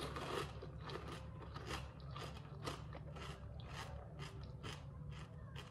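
Someone chewing a crisp, crunchy snack: a steady run of sharp crunches, a little over two a second.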